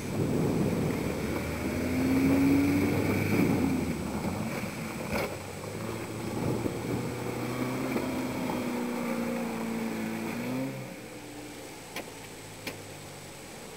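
Engine of a Fronter off-road vehicle running under load, its pitch rising about two seconds in, holding steady, then dropping away near eleven seconds. There is wind on the microphone and a single knock around five seconds in.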